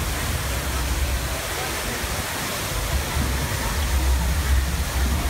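Water from a tall waterfall pouring down rockwork and splashing below, a steady rushing noise.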